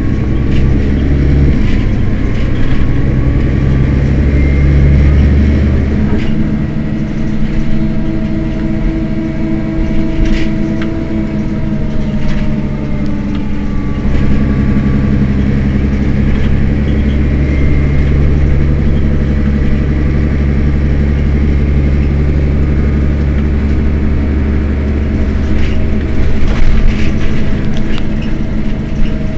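Mercedes-Benz Citaro city bus engine idling while the bus stands still: a steady low engine note with a faint whine above it. The lowest part of the note drops away about six seconds in and comes back about eight seconds later.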